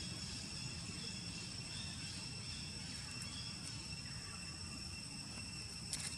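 Steady high-pitched drone of insects over a low outdoor rumble, with a few short clicks near the end.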